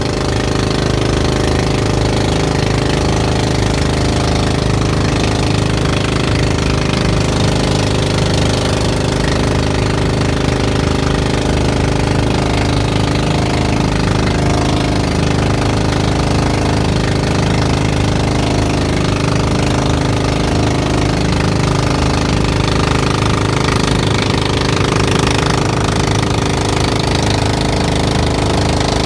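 Outrigger bangka boat's engine running steadily under way, a loud, even, rapid knocking drone, with the rush of water and wind over it.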